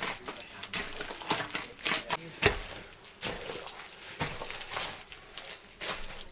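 Irregular sharp knocks and taps, a few to the second, with one louder knock about two and a half seconds in.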